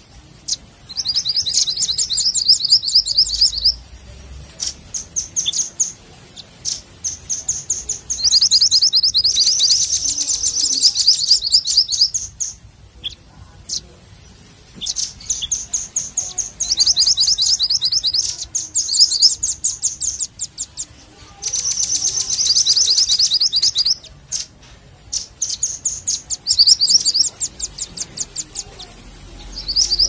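Bird-trapping lure recording of mantenan gunung (minivet) and red-billed rambatan (velvet-fronted nuthatch) calls: rapid, high chirping trills in bursts of two to four seconds, separated by short pauses with scattered single chips.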